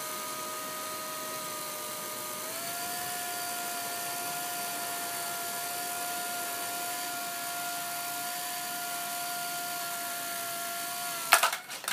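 Homemade contra-rotating pair of small electric motors spinning two propellers: a steady, loud high whine that steps up slightly in pitch about two and a half seconds in and holds there. Near the end a sharp clatter and the whine cuts off and winds down, as one of the parts pops loose.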